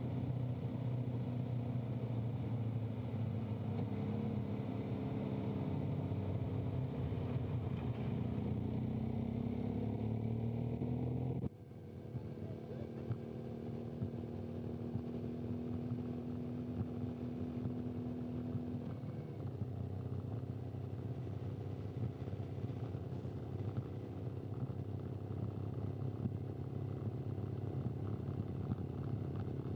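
Race motorcycle engine running close by at low speed, its pitch rising and falling as it keeps pace with the riders. About twelve seconds in the sound drops abruptly and carries on as a steadier engine note.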